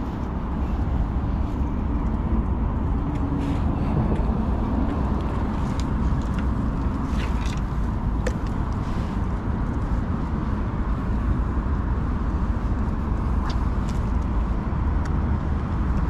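Steady low rumble of outdoor background noise, with a few scattered light clicks and knocks.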